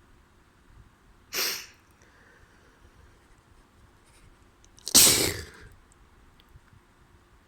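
Two sneezes from a person with a head cold, the second louder and longer than the first.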